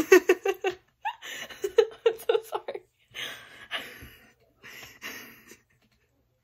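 A girl's fit of laughter: quick pitched ha-ha bursts, then breathier laughs that stop about a second before the end.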